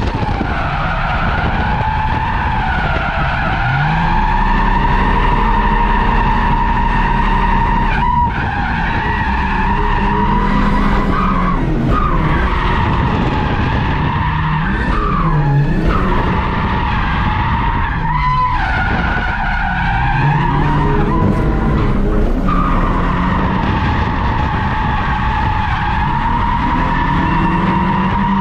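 Stock V6 Holden VS Commodore drifting, heard from inside the cabin: the rear tyres squeal steadily while the engine revs rise and fall. The squeal breaks off briefly a few times.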